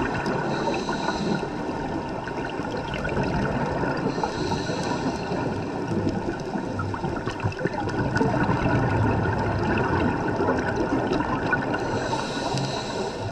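Scuba diver breathing through a regulator, heard underwater: a hissing inhalation with a high whistle about a second long at the start, again about four seconds in and near the end, and the gurgling rush of exhaled bubbles in between.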